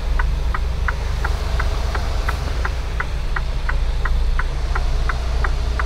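Semi truck's turn signal ticking in the cab, about three ticks a second, over the steady low drone of the diesel engine.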